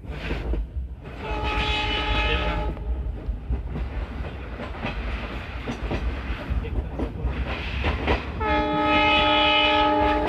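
A train horn sounds twice as a steady multi-note chord: a short blast about a second in, then a longer, louder one near the end. Underneath, the passenger train rumbles and its wheels clatter on the rails, heard from a coach window.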